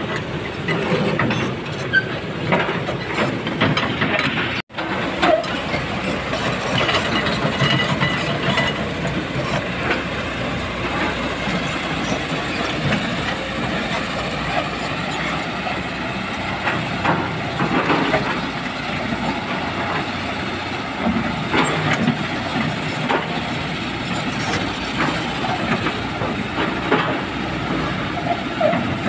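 Kobelco hydraulic excavator running, its diesel engine steady while the steel crawler tracks clank and knock as it travels. A brief break about five seconds in.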